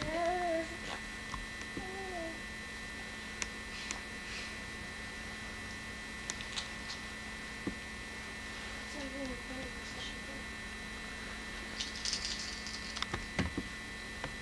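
A baby makes short rising-and-falling vocal sounds three times, near the start, about two seconds in and about nine seconds in, over a steady electrical hum. A few faint clicks and a knock near the end.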